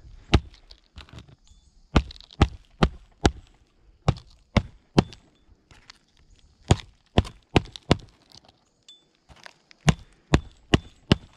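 AJC Mag roofing hatchet driving roofing nails into asphalt shingles: sets of three to five sharp hammer blows, a few tenths of a second apart, with short pauses between nails.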